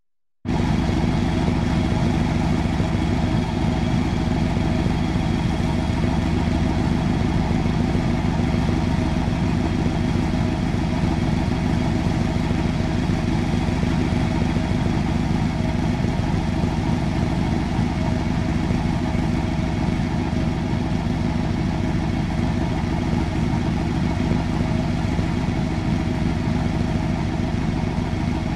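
Chevrolet Chevelle SS V8 idling steadily. It starts about half a second in and holds an even, unchanging level.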